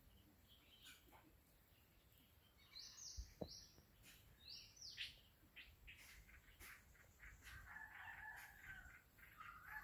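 Faint bird calls: short, high calls that slide downward, a few around three seconds in and again around five seconds, then a longer, lower call near the end.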